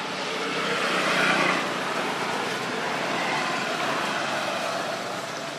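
Distant engine drone, swelling about a second in and then holding steady.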